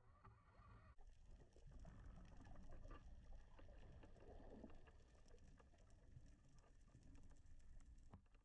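Near silence: faint underwater ambience, a low rumble with scattered light clicks.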